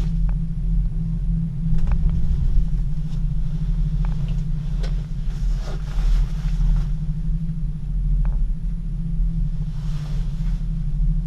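Gondola lift cabin running along its haul rope, heard from inside the cabin as a steady low rumble. A few light clicks and knocks come in the first seconds as the cabin passes a support tower.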